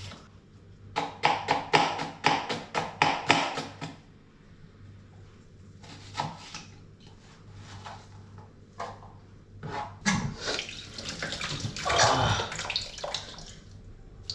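A kitchen knife chops red onion on a plastic chopping board: a quick run of about four strokes a second for some three seconds, then a few scattered cuts. About two-thirds of the way through, a rushing noise lasts about three seconds.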